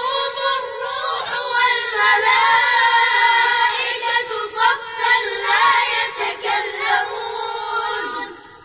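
Children's voices reciting a verse of the Qur'an in melodic tarteel style, held and ornamented like chanting. The recitation fades out near the end.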